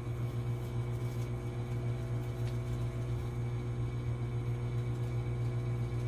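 Microwave oven running: a steady low hum.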